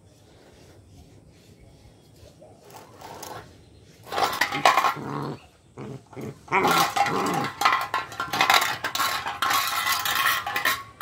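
German Shepherd puppy growling in play, starting about four seconds in, followed by a rapid scraping clatter in the second half as the puppy works a stick against the concrete.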